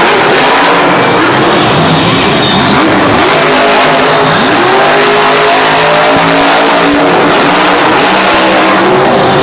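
Grave Digger monster truck's supercharged V8 engine revving hard, its pitch rising and falling several times over a dense, loud noise.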